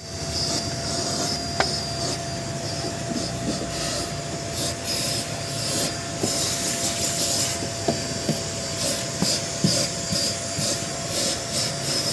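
Vacuum cleaner running with a steady whine while its hose nozzle scrapes and rubs irregularly over the car's rear floor mats, with a few light knocks.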